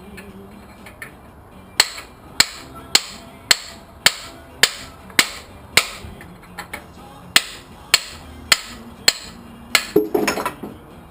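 Hammer blows, about two a second for some eight seconds, driving a stuck part out of an engine block, with a brief rattling clatter near the end.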